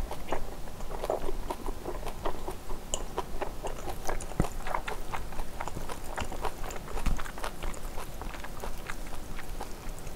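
Close-miked chewing of a mouthful of kimchi stew and rice: many small wet mouth clicks and smacks, a few a second.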